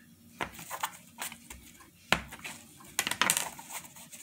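A kitchen knife knocking against a plastic cutting board as it cuts through a pressed bed of sushi rice. There are scattered sharp knocks, the loudest about two seconds in and a quick cluster about three seconds in.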